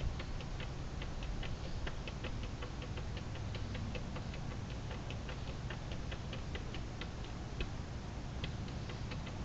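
Cat's claws picking and scratching at a window screen's mesh: a quick, uneven run of light ticks, several a second.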